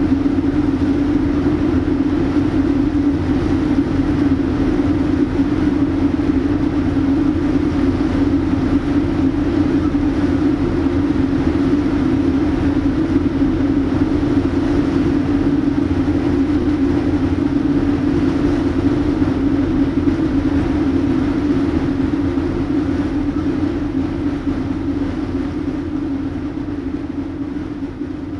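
Steady machinery drone with a strong, even low hum and rumble, unbroken, fading out over the last few seconds.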